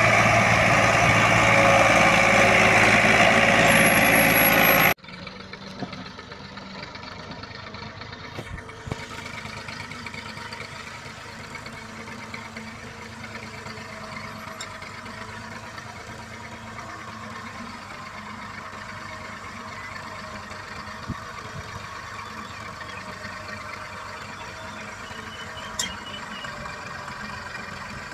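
Massey Ferguson 240 tractor's three-cylinder diesel engine working hard under a heavy load, so that its front wheels lift off the ground. The first five seconds are much louder and cut off suddenly; after that the engine runs on steadily and more faintly, with an occasional sharp tick.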